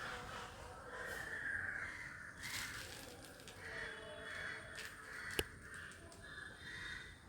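A crow cawing repeatedly, with a single sharp click about five seconds in.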